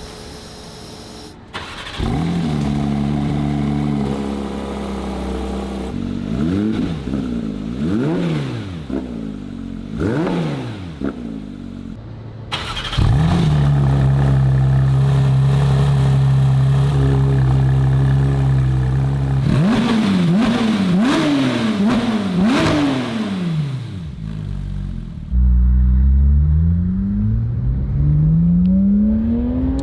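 Porsche 992 GT3 RS 4.0-litre flat-six running through a cat-back exhaust, cut together from several clips comparing the stock and Fabspeed titanium systems. The engine idles and is blipped sharply several times. At about 13 s it starts and settles into a steady fast idle, is blipped again, and near the end the car accelerates with the revs climbing.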